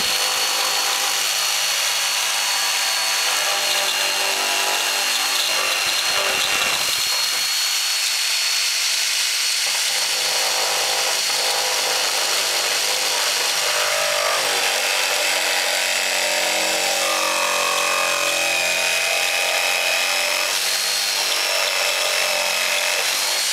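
Electric jigsaw running steadily, its blade sawing through a kitchen countertop along a painter's-taped cutout line to finish a tight corner of the sink hole. The motor's high whine holds steady throughout, shifting slightly in pitch as the saw is steered.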